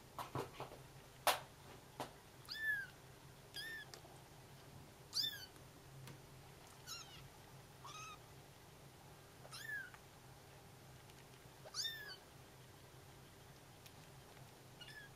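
Bengal kittens meowing for their mother: about eight short, high-pitched calls that rise and then fall in pitch, one every second or two. A few sharp clicks come in the first two seconds, the loudest about a second in.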